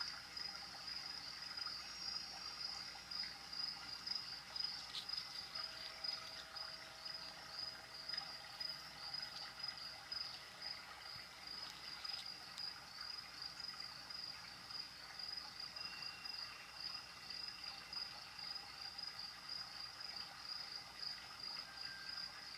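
Crickets chirping in a steady, evenly pulsed high-pitched chorus, over a faint trickle of water.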